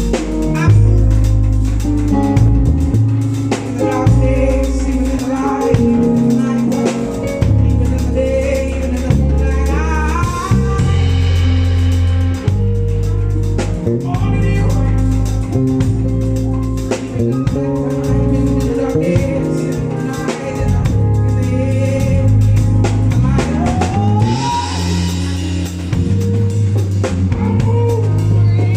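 Live band playing with drum kit and bass, with a voice or lead instrument over it.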